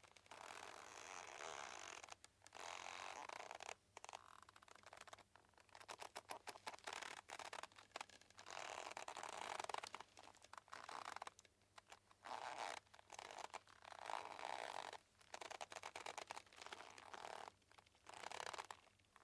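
Boat mooring ropes creaking and squeaking under strain in a string of drawn-out creaks, each a second or two long, with short pauses between.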